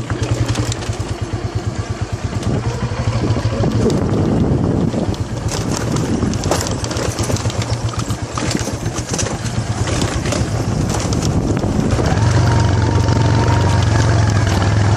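Motorcycle engine running under way on a rough off-road track, with frequent knocks and rattles from the bike over bumps; the engine gets louder and steadier about twelve seconds in.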